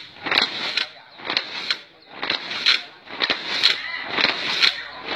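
A ngo boat rowing crew shouting together in time with their paddle strokes, a loud group call about once a second in a steady rhythm.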